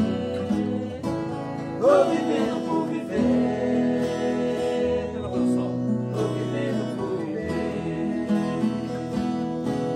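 Acoustic guitar trio, one nylon-string classical guitar and two steel-string acoustics, strummed and picked together while two male voices sing the melody.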